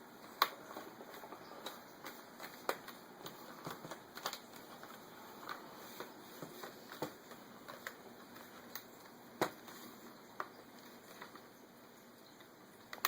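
Plastic screen bezel of an Acer Aspire 5333 laptop being pressed back on, its clips snapping into place with irregular sharp clicks, the loudest about nine and a half seconds in.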